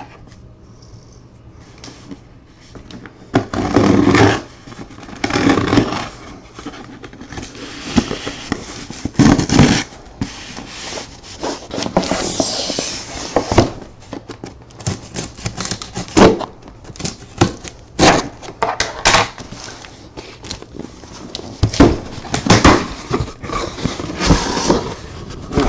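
A cardboard shipping case being opened and handled by hand, with irregular scrapes, rustles and knocks of cardboard and packing tape, and a longer scraping rustle about halfway through.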